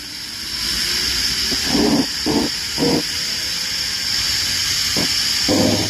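Zip line trolley running along the steel cable, with wind rushing over the rider's phone microphone: a steady loud hiss that builds over the first second. A faint whine slowly rises in pitch underneath it.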